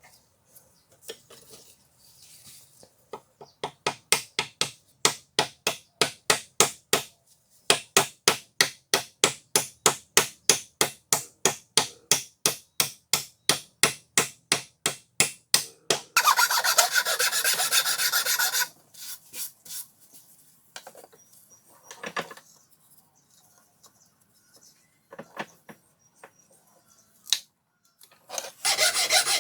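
Hand filing strokes, rubbing back and forth about three times a second, with a short break partway. It then turns to a couple of seconds of continuous rubbing, a few scattered scrapes, and continuous rubbing again near the end.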